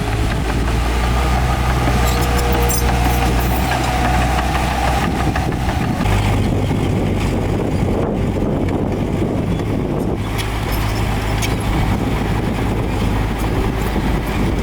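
Heavy diesel engine of earthmoving machinery running steadily; its low note shifts about six seconds in.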